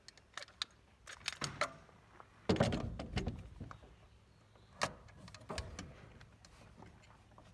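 PVC pipe fittings being handled and pushed onto a plastic cam lock coupling: a run of small clicks and knocks, with a longer clatter about two and a half seconds in and a sharp click near five seconds.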